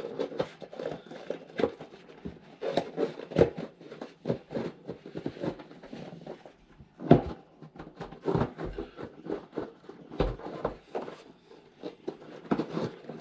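Irregular handling noises from a mountain bike wheel and tyre being worked on by hand: scattered knocks, clicks and rubbing, with a sharper knock about seven seconds in.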